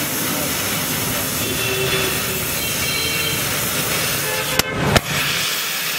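Gas welding torch flame hissing steadily while filler rod is melted into a patch on a steel motorcycle fuel tank. Two sharp knocks come near the end.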